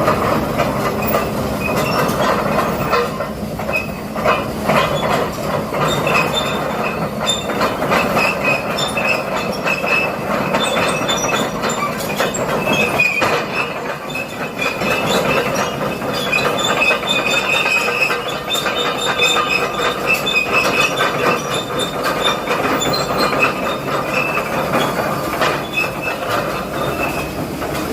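Excavator crawling up a steep road on its steel tracks: the track links squeal and clank without letup over the running engine.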